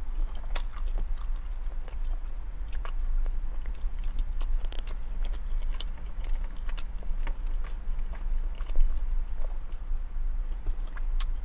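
Close-miked eating of grilled chicken and broccoli Alfredo: chewing with many scattered wet smacks and clicks of the mouth.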